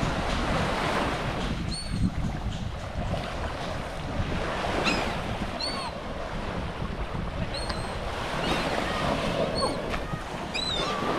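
Beach surf and wind buffeting the microphone, with short, high-pitched calls from the seabirds gathered for the bait, repeated every second or two.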